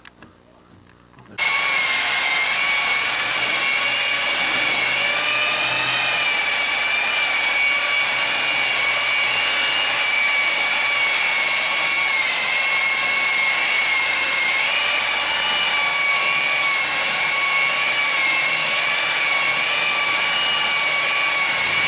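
Electric belt sander running steadily against a wooden tabletop, sanding off the old finish: a constant high motor whine over the noise of the belt on the wood. It starts abruptly about a second in.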